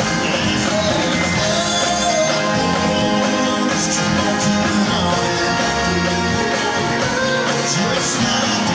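Live band playing a rock song in concert, a full band sound with guitar, in a stretch between sung lines.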